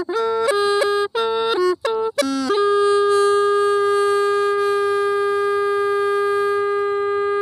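Hmong raj les le bamboo pipe playing a slow melody solo. It plays a few short notes with downward slides and brief breaks for breath, then holds one long steady note for the rest of the time.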